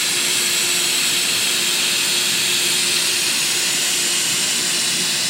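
Steady hiss of gas flowing through a hot-gas plastic welding gun supplied with zero air, with a faint steady hum beneath it.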